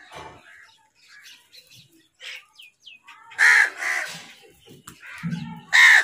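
House crows cawing: a pair of loud, harsh caws about halfway through and another pair at the very end. Between them come short chirps and a few quick falling whistles from common mynas.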